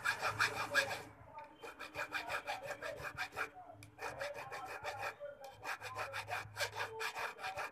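Hand file rasping back and forth over a small metal jewellery piece in quick strokes, several a second, in three runs with two short pauses.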